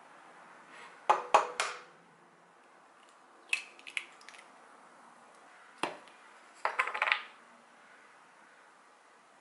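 An egg knocked three times against the rim of a ceramic bowl, then its shell pulled apart over the bowl with a few small clicks. Later a single click and a short rattle of clicks from a glass salt shaker and chopsticks being handled at the bowl.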